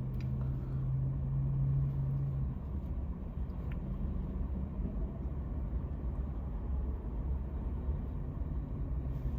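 Low steady rumble with a hum that fades out about two and a half seconds in, and a few faint ticks.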